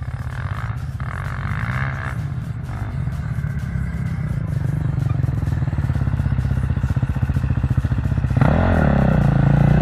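Sport ATV (quad) engine running as the quad approaches, growing steadily louder. About eight seconds in it arrives close and gets much louder, its note dipping and climbing again as the rider works the throttle.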